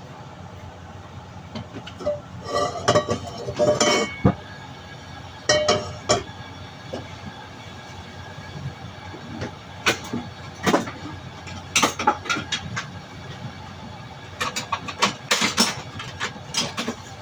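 Metal cookware and utensils clinking and knocking in irregular clusters, some strikes ringing briefly, over a steady low hiss.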